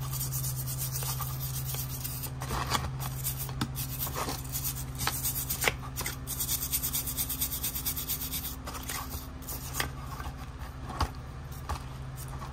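Hand scrubbing and scraping of crud-caked old grease off a steel front spindle in a tub of dirty cleaning liquid: uneven rubbing strokes with now and then a sharp click of tool on metal, over a steady low hum.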